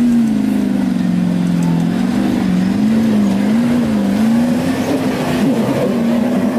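Jeep Grand Cherokee's engine working hard up a steep muddy slope, its revs sagging, then rising and falling several times before holding steadier near the end.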